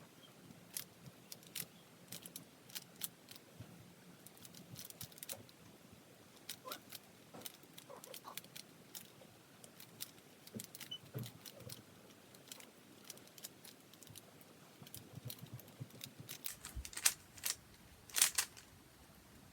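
Plastic Rubik's Cube being turned quickly during a speed-solve, its layers clicking in quick, irregular bursts. The loudest clicks come near the end.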